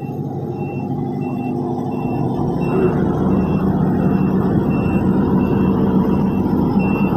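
Diesel engine of heavy road-paving machinery running steadily, getting louder about two and a half seconds in. A reversing alarm beeps over it about one and a half times a second.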